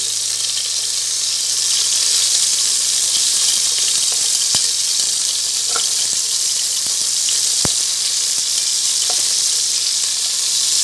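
Chicken wings sizzling as they fry in oil in a pressure cooker pot: a steady hiss, with a few sharp clicks of a metal spatula against the pot.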